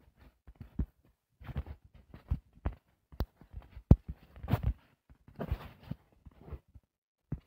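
Irregular soft thumps and a few sharp clicks in uneven clusters, with dead-silent gaps between: taps and handling noise on a tablet being drawn on.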